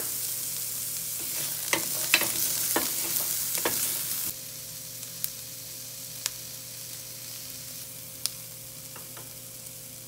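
Onions and garlic frying in olive oil in a stainless steel pan, a steady sizzle with a few sharp ticks. The sizzle drops suddenly to a quieter level about four seconds in.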